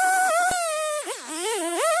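Stihl MS 250 two-stroke chainsaw at full throttle, cutting through a downed tree limb. The engine pitch sags and recovers several times as the chain bites into the wood, then climbs back to full revs near the end. There is a sharp click about half a second in.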